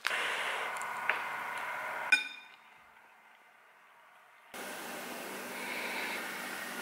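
Foil ration sachets crinkling as they are pressed and squeezed by hand, then one sharp clink with a short ring just after two seconds. A near-silent gap follows, then a steady faint hiss.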